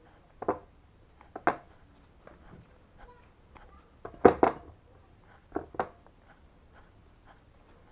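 Hands kneading and squeezing a ball of oatmeal bait dough: a few short squishing sounds, some in pairs, the loudest about four seconds in.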